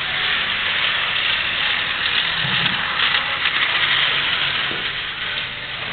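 Battery-powered Plarail toy trains running on plastic track: a steady whir and rattle of their small motors and wheels.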